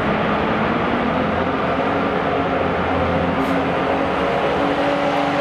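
Diesel garden pulling tractor engine running hard under load as it drags a weight sled down the track. Its note holds steady, then rises a little about four and a half seconds in.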